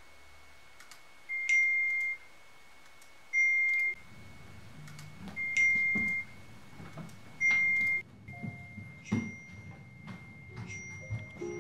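Electronic alert beeping: four loud beeps on one high pitch, about two seconds apart, each with a buzzy edge, followed by a faint steady tone. Soft footstep knocks run underneath, and music comes in near the end.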